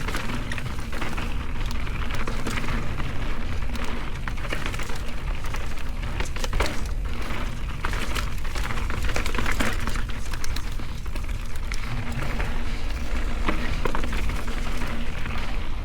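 Mountain bike ridden on a dirt trail: tyres crunching over dirt and rocks, with a constant patter of sharp clicks and rattles from the bike, over a steady low rumble.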